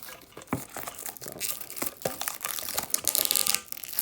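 Plastic wrapping crinkling and tearing as a Topps Match Attax trading card tin is unwrapped: a dense run of sharp crackles, loudest about three seconds in.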